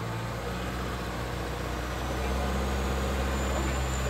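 Chevrolet Colorado ZR2's turbocharged four-cylinder engine running at low revs as the truck crawls through a muddy rut, a steady low engine note that grows a little louder about halfway through.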